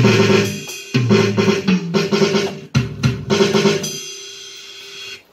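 Electronic drum pad's drum-kit sounds (kick, snare and cymbals) played with sticks through a BRIAN 10-inch, 25-watt amplifier: a quick pattern of hits with deep kick thuds, ending about four seconds in on a cymbal that rings out and fades.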